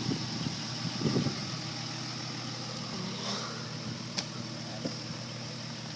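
A four-wheel-drive vehicle's engine idling steadily, with two low thumps near the start and a sharp click about four seconds in.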